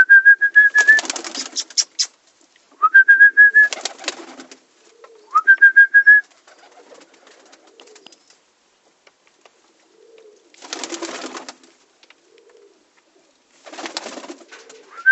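Pigeons in a loft: three short, high, steady whistle-like tones, each followed by a burst of scuffling noise, with faint low cooing between. Two more bursts of scuffling come later on.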